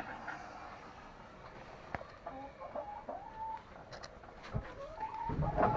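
Chickens clucking in a series of short calls, with a louder burst of rustling or handling noise near the end.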